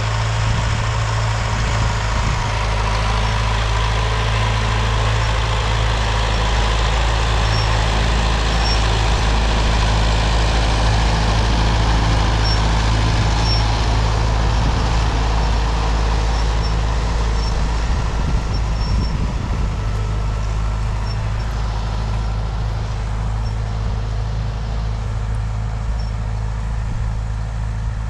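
Universal U650 tractor's four-cylinder diesel engine running steadily under load while pulling a disc harrow across the field. It grows a little louder as the tractor passes close, around the middle, then eases off.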